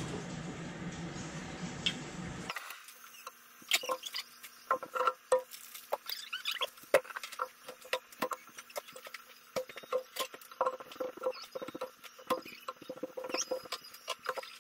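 Rice wine being poured into a pan of simmering broth, a steady rushing sound. After an abrupt change comes a covered frying pan of prawn broth at a rolling boil, with irregular popping and ticking as bubbles burst and jostle the glass lid.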